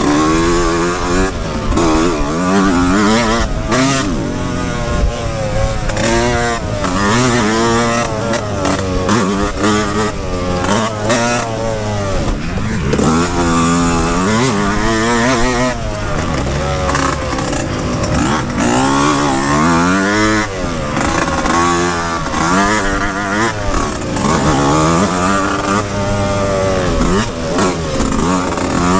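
Yamaha YZ125X single-cylinder two-stroke motocross engine revving hard. Its pitch climbs and drops every second or two as it is shifted and rolled on and off the throttle.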